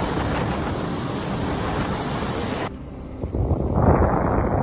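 Hurricane wind and torrential rain, a loud steady rush. It cuts off abruptly about two and a half seconds in, and a duller, muffled wind buffeting the microphone takes over and grows louder near the end.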